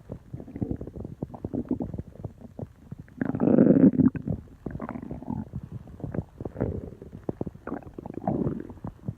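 A person's stomach making noises: a fast, irregular run of small pops and clicks, with a louder, longer rumble about three seconds in.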